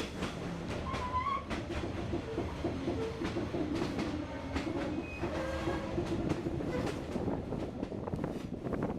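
Passenger train running along the track: a steady low rumble with many sharp clicks and knocks from the wheels and rail joints.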